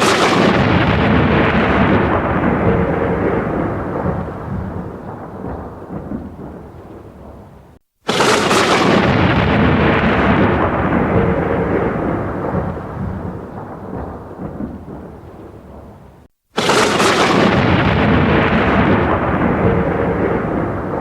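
Thunder crashes, three in a row: each opens with a sharp crack and rolls into a long rumble that fades over about eight seconds. The second crash comes about eight seconds in and the third about sixteen seconds in, each cut off abruptly just before the next.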